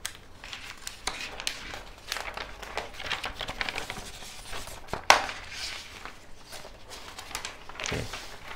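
Paper model-kit instruction manual rustling and crinkling as it is handled, flipped and unfolded, with one sharp snap about halfway through.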